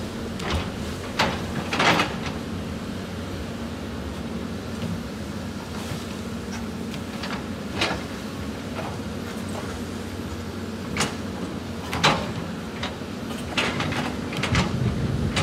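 CAT 320D excavator's six-cylinder diesel engine running steadily under digging load, with sharp clanks and knocks of the steel bucket striking and scraping rock and stones clattering, loudest about two seconds in, again about twelve seconds in, and in a cluster near the end.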